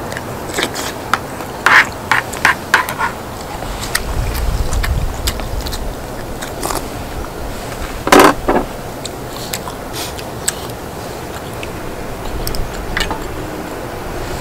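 Close-up eating sounds: a person chewing and biting, with scattered sharp clicks and scrapes, a quick cluster of them about two seconds in, and one louder noisy sound about eight seconds in.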